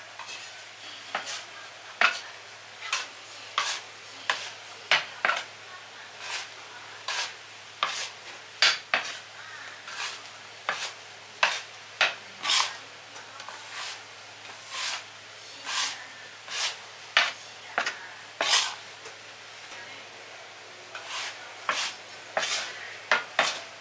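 Crumbly butter-and-flour dough for pineapple bread topping being scraped, pressed and rubbed together by hand and a metal scraper on a countertop: short rough scraping strokes, roughly one or two a second, uneven in spacing and strength.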